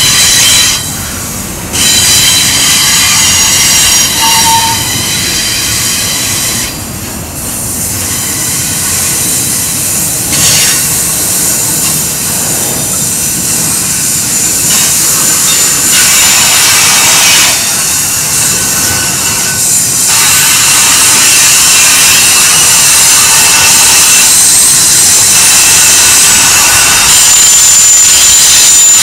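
Freight train of double-stack container well cars and autorack cars rolling past on a curve. Steady rumble and clatter of the cars, with high-pitched wheel squeal from the flanges on the curve, loudest in the latter part.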